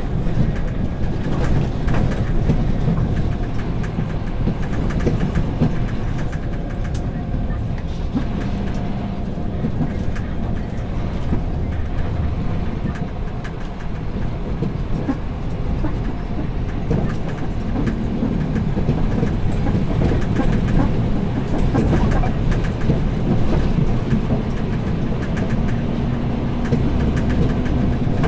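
Scania P360 dump truck driving unladen, its diesel engine running steadily with a constant low drone, with frequent small rattles and knocks from the truck.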